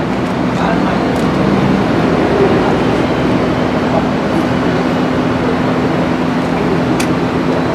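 Steady machinery running, a continuous loud noise with a low, even hum.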